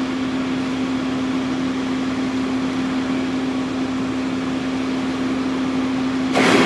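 Steady mechanical hum with a single steady low tone over a noisy hiss, giving way to a louder, rougher noise just before the end.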